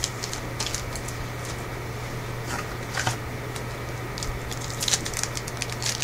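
A trading-card pack being torn open and its cards handled: a few short, scattered rustles and crinkles of wrapper and card stock, over a steady low hum.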